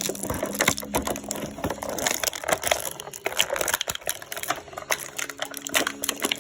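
Plastic and cardboard action-figure packaging being pried and torn open by hand: a rapid, irregular run of crinkles, clicks and snaps.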